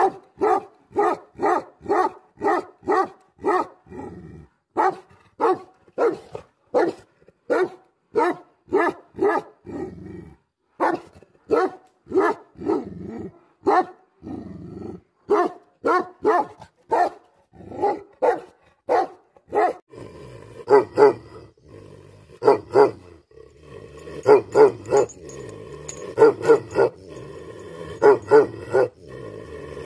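Tibetan Mastiffs barking, a steady run of short barks at about two a second with a few brief pauses. About twenty seconds in, the barks continue over a steady low rumble.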